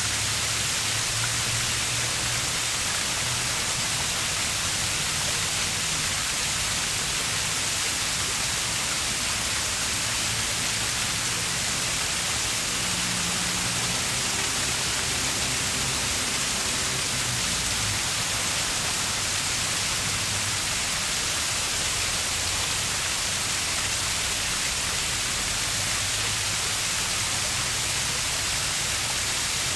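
Flowing river water making a steady, even rushing hiss.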